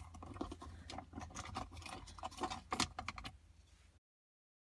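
Irregular small clicks and rattles of metal parts being handled, as of a hand tool and screws at the dashboard. The sound cuts off abruptly into dead silence about four seconds in.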